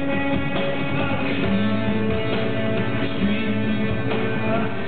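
Live rock band playing, with electric guitars and drums, heard through the PA from the audience.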